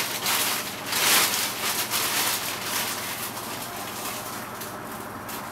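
Plastic carrier bag of crushed digestive biscuits crinkling and rustling as it is handled, loudest at the start and about a second in, then softer.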